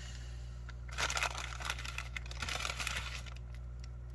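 Plastic ration food packaging crinkling as it is handled, a dense crackle of small clicks starting about a second in and fading after about two seconds.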